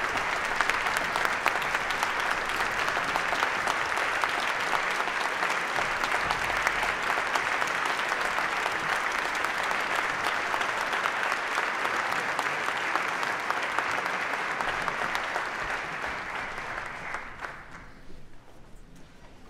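Audience applauding steadily, then fading away over the last few seconds.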